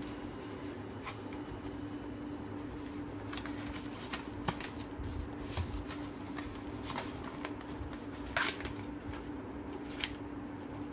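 A cardboard box insert being handled and opened, with scattered rustles and light knocks, the sharpest about four and a half and eight and a half seconds in, and a cable taken out. A steady low hum runs underneath.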